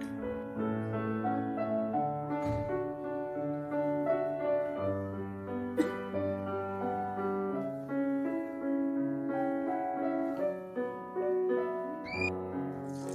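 Background piano music, a slow melody of held notes, with one sharp tap about six seconds in.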